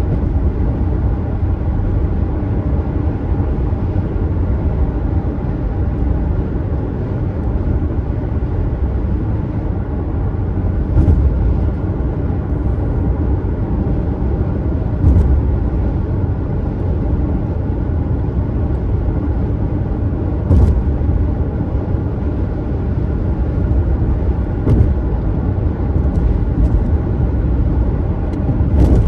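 Steady road and tyre noise of a car driving at highway speed, heard from inside the moving car. A few brief thumps come several seconds apart.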